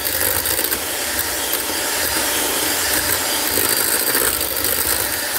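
Electric hand mixer running steadily, its beaters whipping boiled potatoes and milk into creamed potatoes in a metal saucepan.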